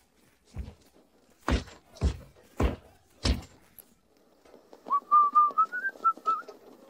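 Cartoon sound effects: a light thud, then four heavy thuds about half a second apart, followed by a wavering whistle-like tone over rapid clicking that rises slightly and stops shortly before the end.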